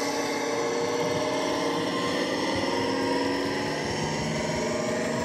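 Model class 55 Deltic locomotive's sound decoder playing a steady diesel engine note through its small speaker. This imitates the Napier Deltic engines. The pitch eases down slightly partway through, then holds level.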